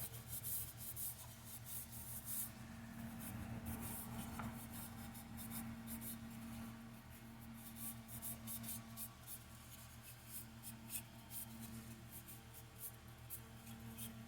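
Paper towel wet with denatured alcohol rubbed over a sanded mahogany bowl: faint, scratchy wiping strokes over a steady low hum.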